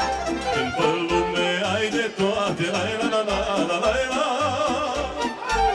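Live Romanian folk party music from a wedding band: a wavering melody line over a steady bass beat of about two pulses a second.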